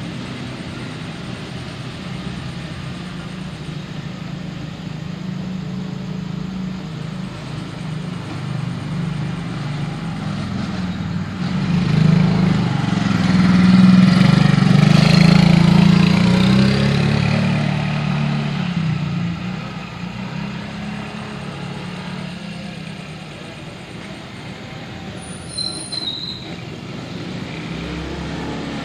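Road traffic: vehicle engines running steadily, with one vehicle passing close, growing louder and then fading away about halfway through.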